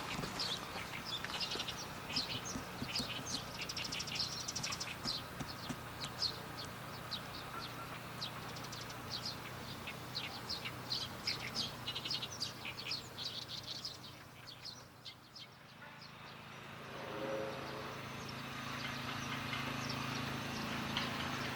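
Small birds chirping in quick, irregular high calls over a low steady hum. About two-thirds through, the chirping drops away and the hum comes up louder.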